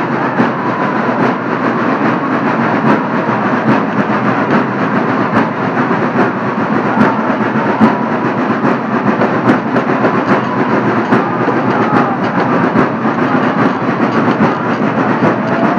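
Dense crowd noise in a busy street, with many sharp clicks and knocks scattered throughout.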